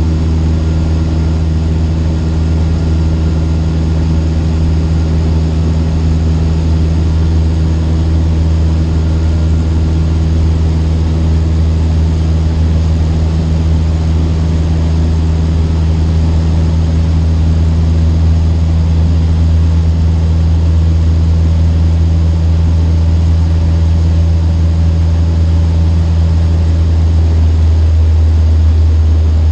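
Cessna 152's four-cylinder piston engine and propeller running at a steady drone, heard from inside the small cockpit.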